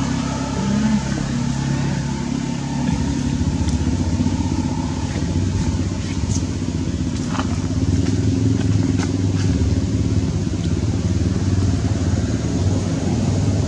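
A motor vehicle engine running steadily, a continuous low hum, with a few short high chirps in the middle.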